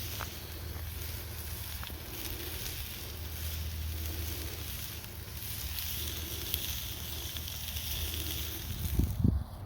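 Food sizzling in cast iron over a campfire, a steady hiss with a few sharp crackles from the fire. A couple of low thumps near the end.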